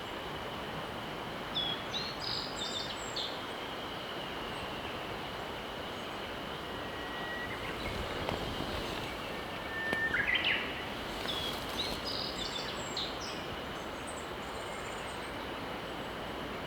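A mountain river rushing steadily, with songbirds calling over it: a few quick clusters of chirps, two short held whistles, and a louder flurry of calls about ten seconds in.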